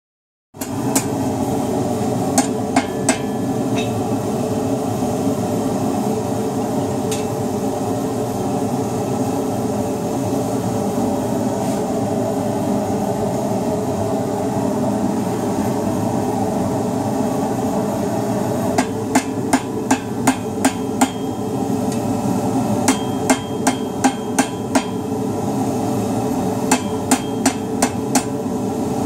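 Gas forge burner running with a steady rushing noise throughout, while a hand hammer strikes a red-hot steel bar on an anvil: a few blows near the start, a long stretch of burner noise alone as the bar heats in the forge, then three quick runs of ringing blows, about three a second, in the second half.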